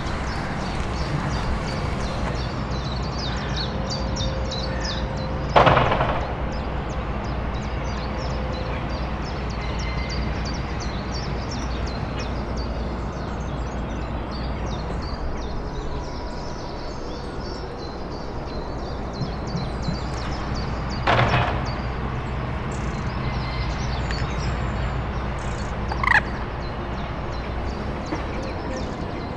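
Outdoor ambience: a steady low rumble with many faint high chirps throughout, and three short louder knocks, the loudest about six seconds in and two more near the end.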